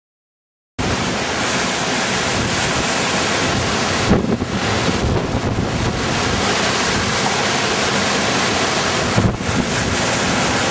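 Strong storm wind buffeting the camera microphone: a loud, steady rush of wind noise that starts suddenly about a second in, dipping briefly twice.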